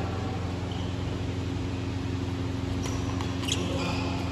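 A few short squeaks of sports shoes on an indoor badminton court floor, over a steady low hum, with a sharp tick of a racket striking the shuttlecock about three and a half seconds in.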